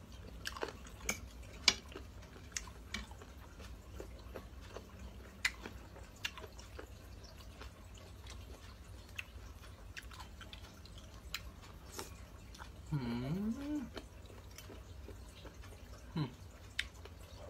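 Quiet eating sounds: a spoon clicking now and then against a ceramic plate and soft chewing of a spicy squid salad. A brief low voiced sound that bends in pitch comes about two-thirds of the way through.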